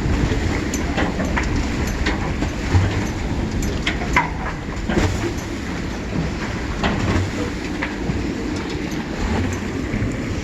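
Gale-force wind buffeting the microphone in a steady low rumble, with scattered sharp clicks and knocks throughout.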